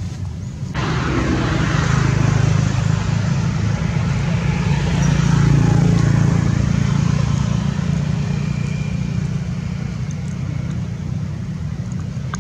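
A motor running: a steady low hum with a hiss over it, growing louder about two seconds in and again near the middle, then easing off.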